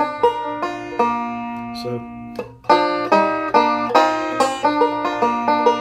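Recording King M5 five-string resonator banjo picked with fingerpicks, ringing bright plucked notes. A few spaced notes come first, then after a short break about two and a half seconds in, a quick, steady run of rolling bluegrass picking.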